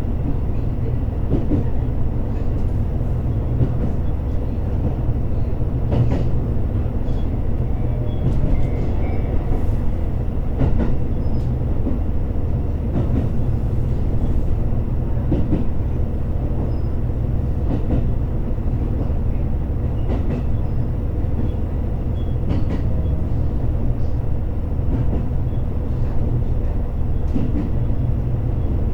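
Running sound inside a JR Hokkaido H100 diesel-electric railcar under way: a steady low rumble of engine and wheels on the track, with occasional sharp clicks.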